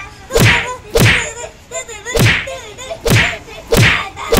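A run of six punch hits, each a quick swish falling into a whack and thud, landing roughly once a second.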